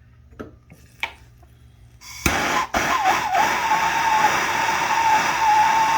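A handheld gas soldering torch is lit about two seconds in with a sharp click, then burns with a loud steady hiss and a whistling tone that wavers at first and then holds, sinking slightly in pitch. It is heating flux-coated copper pipe joints for soldering.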